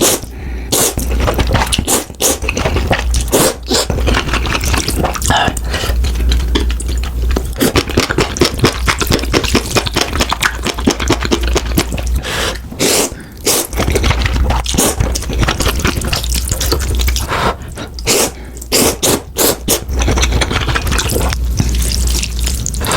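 Close-miked eating of noodles: a dense run of wet slurps, sucking and chewing.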